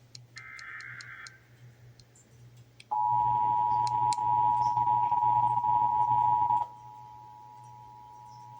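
Emergency Alert System tones. First comes a short burst of warbling digital SAME header data, about a second long. Then the EAS two-tone attention signal (853 and 960 Hz together) holds steady for nearly four seconds, cuts off sharply, and carries on much fainter.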